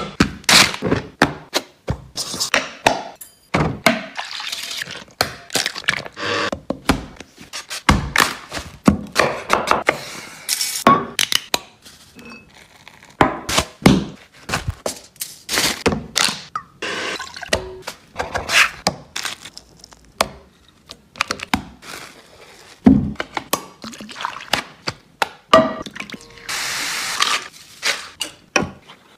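Fast-cut home-cooking sounds: a rapid string of sharp knocks, taps and clatters from bowls, utensils and dough handled on a worktop, with a short hissing stretch near the end.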